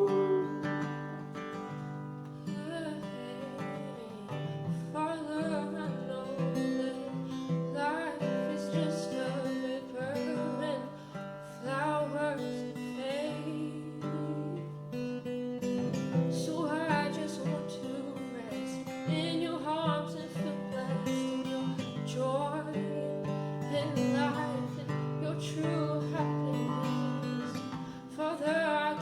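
Acoustic guitar playing, with a voice singing wordless, wavering runs over it.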